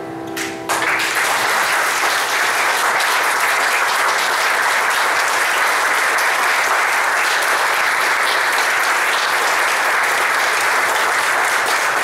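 The last held keyboard chord dies away, and under a second in an audience breaks into steady applause that keeps going.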